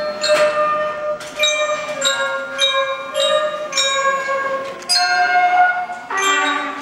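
School concert band playing a tune: flutes hold a line while a glockenspiel (bell kit) strikes ringing notes about twice a second. A trumpet comes in near the end.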